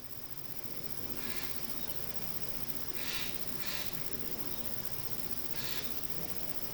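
A wild bird giving short, harsh call notes, four of them one to two seconds apart, over a steady background hiss.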